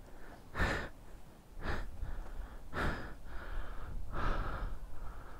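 A person breathing hard, with heavy breaths about once a second.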